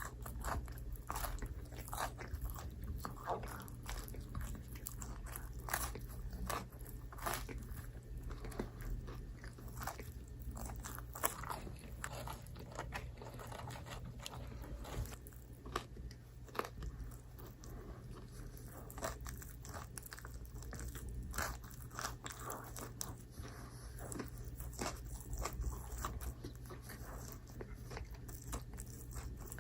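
Close-miked chewing and biting of microwave pizza: irregular crunching with many small clicks, over a steady low hum.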